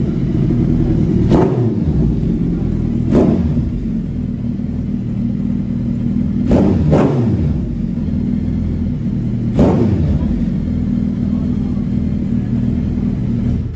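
Suzuki Hayabusa's inline-four idling through an aftermarket SC-Project exhaust and blipped five times, each rev rising and falling back quickly: about a second in, at three seconds, twice in quick succession around seven seconds, and near ten seconds.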